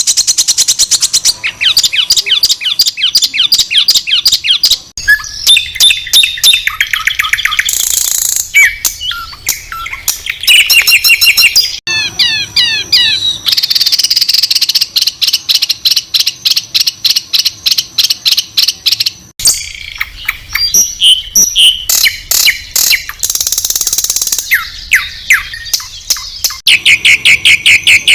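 Songbirds singing loud, high-pitched, rapid-fire phrases of harsh repeated notes (the 'tembakan kasar' or 'shots' style of Indonesian masteran song). The phrases are spliced together, and the song switches abruptly to a different phrase every few seconds.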